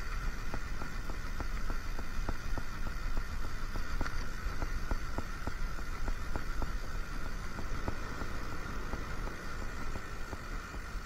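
Fishing reel being wound in, clicking evenly about four to five times a second, over a steady low rumble of wind.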